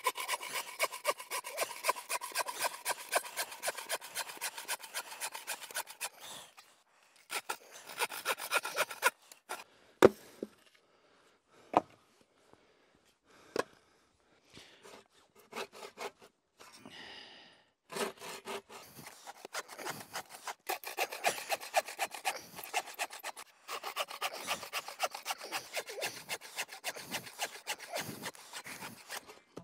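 Small bow saw cutting through a wooden board in quick back-and-forth strokes, in two long bouts with a quieter stretch between that holds a few sharp knocks, the loudest about ten seconds in. Its user suspects the saw itself of cutting poorly.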